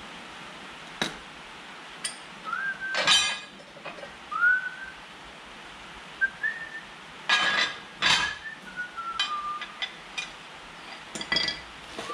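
Metal hand tools clinking and knocking against the steel coulter discs and fittings of a Tume seed drill as the discs are changed, in irregular strikes with short ringing, loudest about three seconds in and again near eight seconds. Between the strikes come a few short whistled notes that glide up and down.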